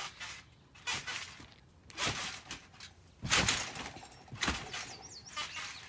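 Bounces on a backyard trampoline: four short, noisy thumps of the mat and springs about a second apart, the loudest a little past three seconds in, as the jumper goes up into a flip.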